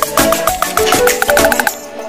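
Upbeat instrumental background music with quick percussion and rapidly repeated notes; it thins out and drops in level near the end.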